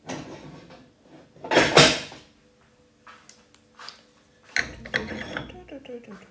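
Cookware being handled on a kitchen counter: a run of separate knocks and scrapes, the loudest clatter about a second and a half in, with more handling noise from about four and a half seconds.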